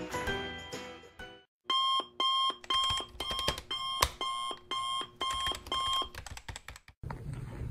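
The end of a short musical jingle fades out, then an electronic alarm clock beeps in short repeated pulses, about two a second, for around five seconds before stopping abruptly. Faint room noise follows.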